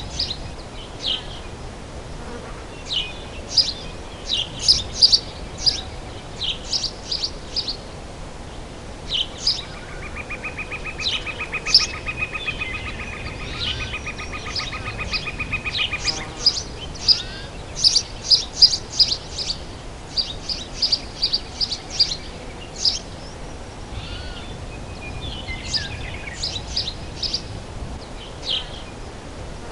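Forest birds chirping, many short high calls coming in clusters, over a steady background hiss. About ten seconds in, a rapid, even trill starts and runs for about six seconds.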